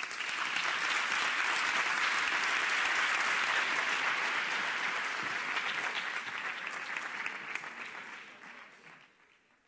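Audience applauding at the end of a talk. The clapping starts at once, holds steady for several seconds, then thins out and dies away over the last few seconds.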